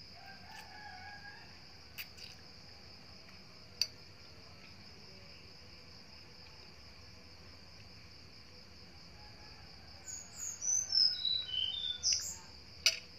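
Caged SRDC songbird singing a short run of clear whistled notes that step downward in pitch, starting about ten seconds in, over a steady high insect drone. A few sharp clicks come earlier and near the end.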